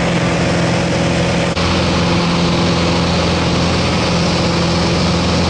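Steady, loud drone of a high-wing light aircraft's engine and propeller in flight, with rushing wind noise over it.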